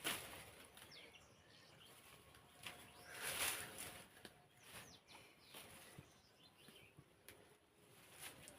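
Faint outdoor ambience with scattered small bird chirps and a few short rustling noises, the loudest a little over three seconds in.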